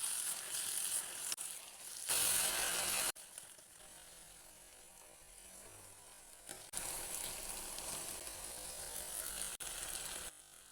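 Sliced okra sizzling as it fries in a pot, a steady hiss that gets louder and softer in sudden steps several times.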